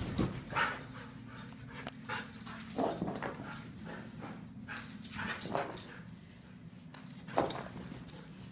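Siberian husky racing around the house, bounding on and off leather couches and over carpet. Its paws land with irregular thumps and scrabbles, louder about three, five and seven and a half seconds in, with a few short whines.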